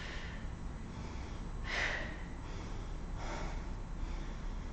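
A woman breathing out sharply twice, about a second and a half apart, with the effort of a seated twisting arm exercise.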